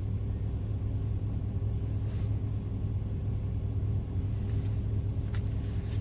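Steady low rumble of a car's engine, heard from inside the cabin, with a light click about five seconds in.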